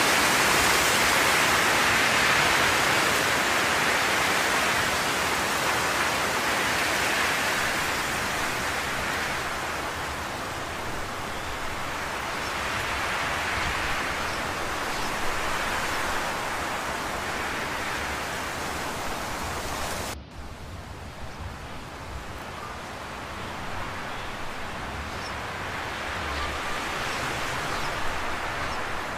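Steady rushing hiss of background noise that swells and fades slowly, then drops suddenly in loudness and loses its treble about twenty seconds in.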